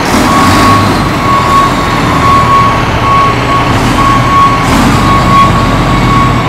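A heavy-equipment engine runs with a steady low rumble while a backup alarm beeps in an even rhythm, a little faster than once a second.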